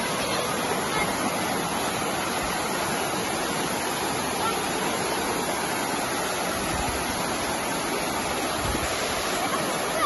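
Waterfall cascading down sloping rock slabs into a shallow pool, with water running over boulders: a steady, even rush of water.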